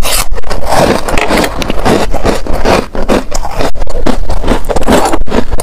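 Pink frost-coated ice being crunched and chewed close to the microphone: a dense, rapid run of hard, crackling crunches.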